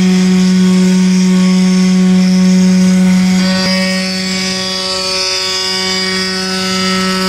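CNC wood router's spindle running steadily while carving wood: a constant hum with a stack of overtones and a hiss above it. The hum eases a little about three and a half seconds in.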